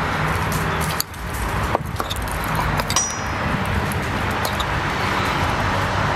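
Metal spoon tossing beans in a small glass bowl, with a few light clinks and scrapes against the glass and one brief high ring about three seconds in. Under it runs a steady outdoor background hiss and low hum.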